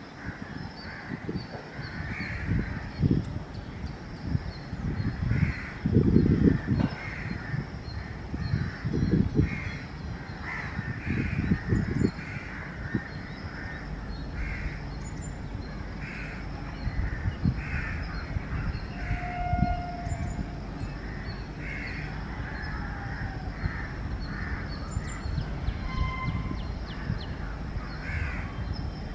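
Crows cawing over and over, with irregular low buffeting in the first twelve seconds. From about halfway a low steady rumble comes in as an electric train approaches in the distance.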